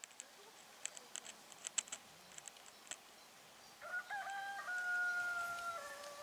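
A rooster crowing once, starting about four seconds in: one long call on held pitches that step slightly down at the end. Before it comes a scatter of faint sharp ticks.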